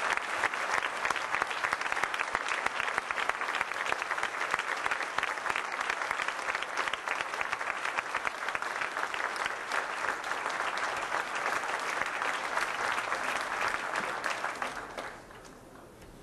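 Large crowd applauding steadily, a dense patter of many hands clapping, which drops away quickly about a second before the end.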